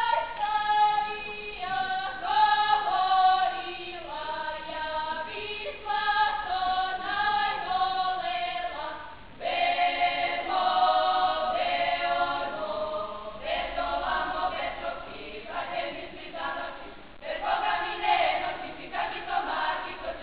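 A folk ensemble's singing group, women's voices to the fore, singing together without instruments, in several phrases; a new phrase comes in loudly about halfway through.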